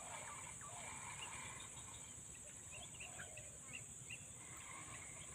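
Outdoor ambience of insects making a steady high-pitched drone, with scattered short bird calls over it.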